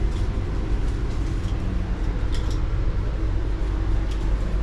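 Steady low rumble of the Northern Explorer passenger train running, heard from inside a carriage, with a few faint light clicks about two and a half seconds in.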